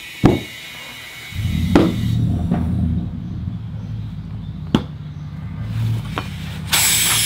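A knock, then a pancake air compressor's motor running with a steady hum and a few clicks; near the end, loud air hissing through the air chuck into the scooter tire's valve stem, its core removed, to inflate the tire.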